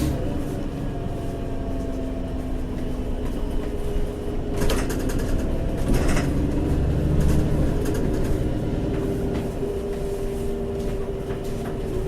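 Inside a VDL DB300 single-decker bus under way: its engine and drivetrain running with steady tones that slowly drift in pitch, over a low rumble. Two short rattles come about four and a half and six seconds in.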